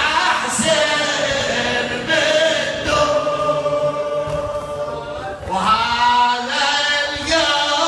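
A man chanting a latmiya, a Shia lament, into a microphone, in long held and wavering melodic lines broken by short breaths.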